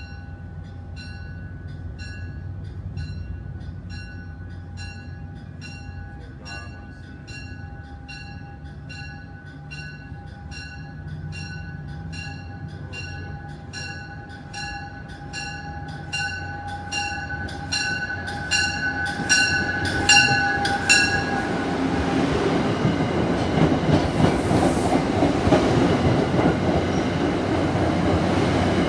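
A warning bell strikes steadily, about three times every two seconds, growing louder. About 20 seconds in, a train reaches the spot and the loud noise of its wheels on the rails, with a rattling clatter, covers the bell and carries on.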